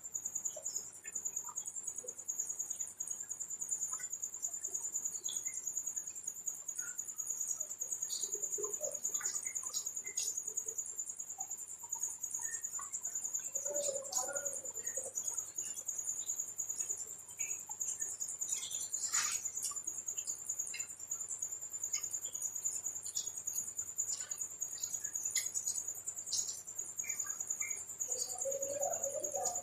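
Close-miked eating: small wet clicks and smacks of chewing, with a steady high-pitched tone in the background.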